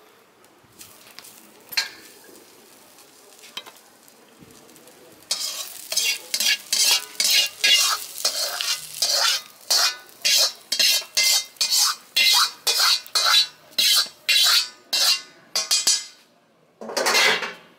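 Wok spatula scraping fried rice out of a wok onto a platter. After a few quiet seconds with light clicks comes a quick run of scrapes, about two a second, for some ten seconds. One louder sound about a second long follows near the end.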